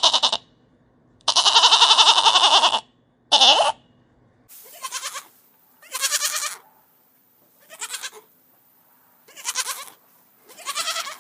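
Goats bleating: three loud bleats, the middle one long and drawn out, then five shorter, quieter bleats with a quavering pitch.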